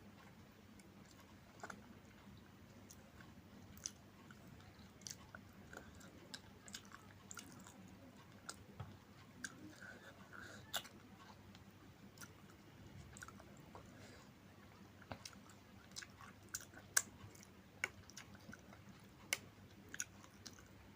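Close-miked eating: faint chewing of rice and curry with irregular sharp clicks and smacks scattered throughout, a few louder ones near the end.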